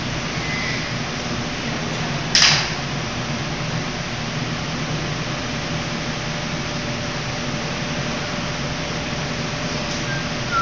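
Steady hum and hiss of commercial kitchen ventilation, with one short sharp noise about two seconds in.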